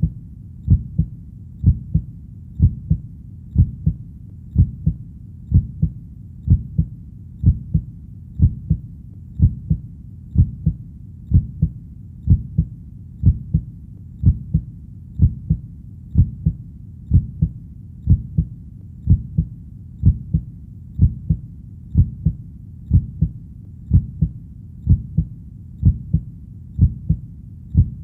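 A heartbeat: steady, low double beats (lub-dub), about one pair a second, keeping an even pace.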